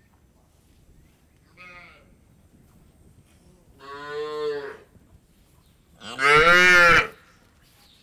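Cows mooing: three calls, a short faint one about two seconds in, a longer one near the middle, and the loudest near the end, rising and then falling in pitch.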